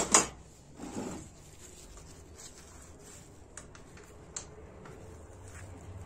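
Handling knocks at a steel bench vise as a heat-softened, charred goat-horn block is set between its jaws: a sharp knock right at the start, a softer thud about a second in, then a few faint light clicks.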